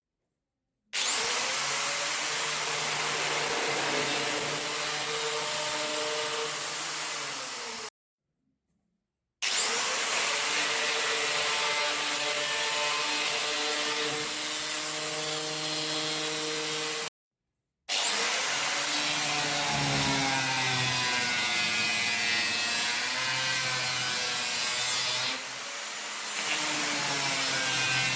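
A high-speed power tool with a cutting blade spins up to a high whine and saws into an SWR PVC pipe, with a steady grinding drone under the whine. This happens in three takes, each broken off by a short silence.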